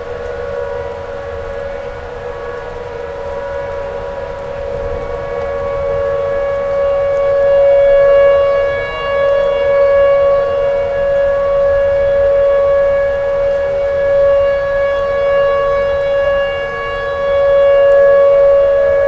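Tornado warning siren sounding a loud, steady wailing tone. It grows louder from about six seconds in, then swells and fades every couple of seconds.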